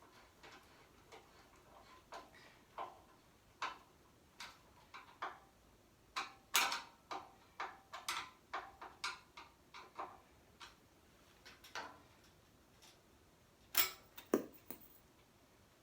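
Irregular light clicks and taps from hardware being handled on a 12U network rack while a switch is mounted, a few a second at their busiest, with two louder knocks near the end.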